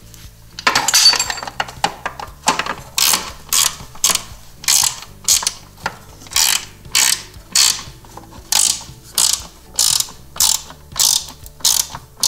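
Hand socket ratchet clicking as it turns a bolt, a brief fast run about a second in, then steady back-and-forth strokes about twice a second.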